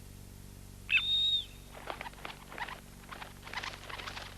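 Cartoon sound effects of young birds trying their wings: a single short high peep that rises and then holds, followed by a quick, irregular pattering of little wing-flutter taps.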